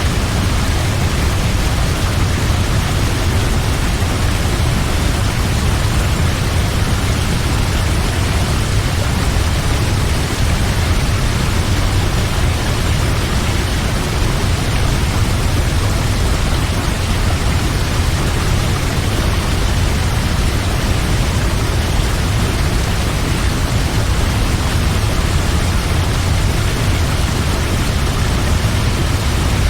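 Large waterfall: a steady, loud rush of falling water with a deep low rumble.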